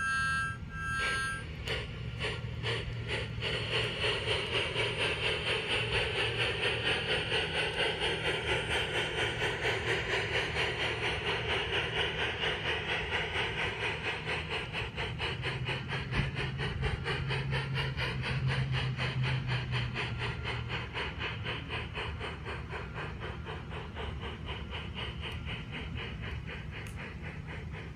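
LGB garden-scale model steam train running along the track with a steady rhythmic chuffing clatter, about four beats a second, over a low motor hum; it swells as the train passes and slowly fades as it runs away. A short high two-note whistle finishes about a second in.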